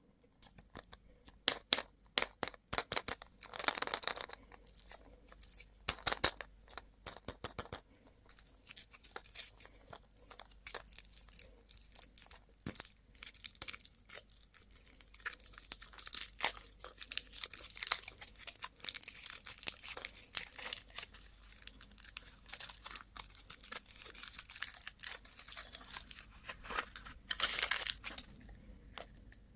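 Plastic candy and toy packaging being crinkled and torn open by hand, with irregular sharp clicks and crackly rustles, louder bursts a few seconds in and near the end.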